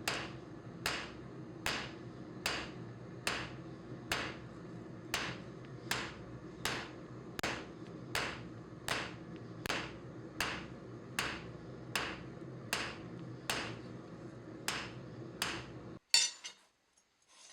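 Hammer blows on hot crucible steel, a little over one strike a second in an even rhythm, drawing out the edge side of a knife blank, over a steady low hum. The hammering stops about sixteen seconds in.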